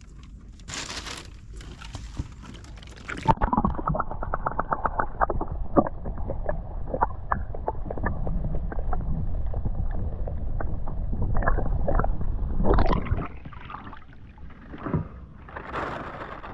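Muffled underwater sound from a camera microphone dipped into the sea: a low rumbling wash of water with many small clicks and gurgles. It starts abruptly about three seconds in and eases off near the end.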